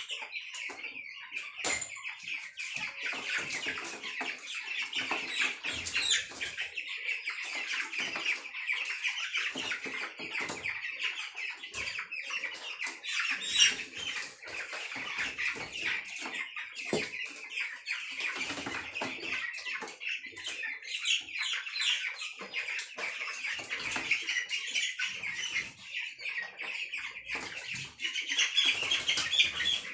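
A flock of broiler chickens clucking and peeping continuously. Scattered knocks, rustles and some wing flapping come from birds being caught out of the pen and handled into a plastic crate.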